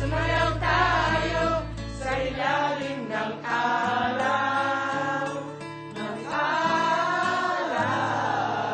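Background song with sung vocals; a low bass note underneath drops out about two and a half seconds in.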